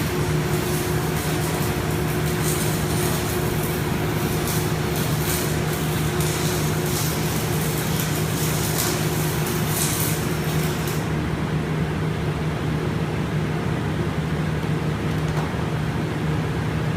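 Flux-cored wire welding arc crackling while laying a pad weld, cutting off about 11 seconds in, over the steady hum of smoke collectors.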